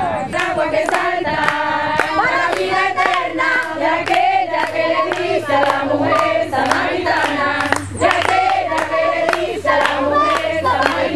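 A group of people singing a worship chorus together, with hand-clapping along in time.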